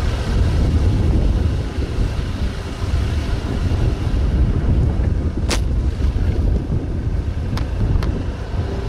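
Wind buffeting the microphone on a moving ride, with a steady low rumble from the vehicle underneath. A sharp click a little past halfway, and two fainter clicks near the end.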